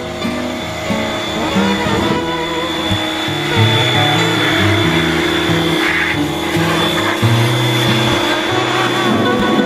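Background music with a moving bass line, over a steady high whine and a constant rushing noise.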